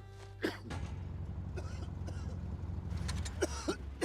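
A man coughing: a sharp cough about half a second in and a short cluster of coughs near the end, over a steady low rumble.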